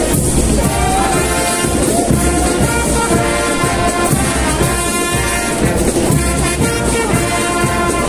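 Marching band playing a tune, its brass section loud and close, with trumpets and trombones carrying the melody.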